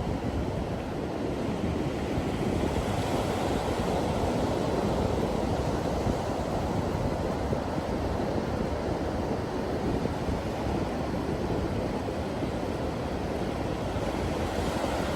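Atlantic Ocean surf breaking on the shore in a steady wash, swelling a little a few seconds in.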